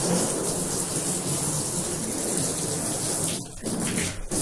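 Garden hose spraying water against the wall of an emptied 5,000-litre plastic cistern to rinse off soap: a steady rushing splash that dips briefly twice near the end.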